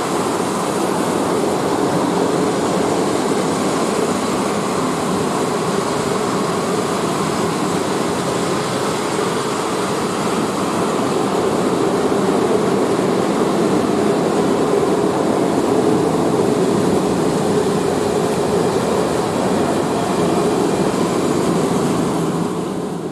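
Loaded open coal wagons of a long freight train rolling past: a steady roar of steel wheels on the rails, dying away near the end as the last wagon goes by.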